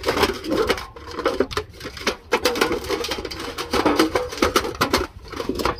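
Husky puppy splashing in a stainless steel water bowl, her head and front paw in the water. Quick, irregular splashes and slaps of water against the metal bowl.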